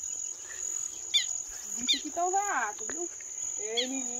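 Insects keeping up a steady high-pitched drone, with a few short falling chirps over it and two brief wavering voice-like calls in the second half.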